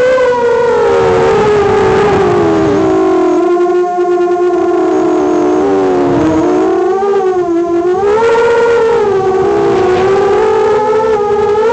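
Emax RS2205 brushless motors and props of a QAV210 FPV quadcopter on a 3S battery, a steady whine whose pitch slides up and down with the throttle, dropping a few seconds in and climbing again past the middle.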